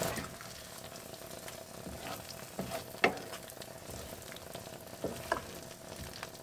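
Chicken curry sizzling in a frying pan as it is stirred with a spatula, with a few short scrapes and knocks of the spatula on the pan, the loudest about three seconds in.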